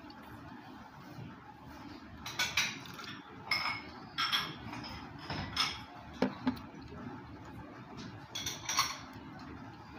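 Ceramic tableware and utensils clinking: a scattered series of light knocks and clinks, some with a short ring, bunched more closely near the end.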